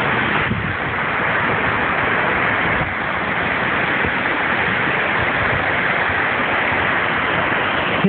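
Steady rushing of water tumbling down a chain of small waterfalls in a mountain stream.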